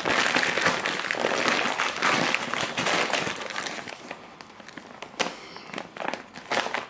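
Woven polypropylene fabric of a blue IKEA bag rustling and crinkling as it is handled and turned inside out through a gap in the seam. Dense and loud for the first three seconds, then thinning to scattered crackles.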